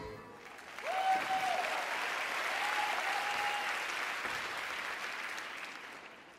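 Audience applauding; the applause swells about a second in and dies away near the end.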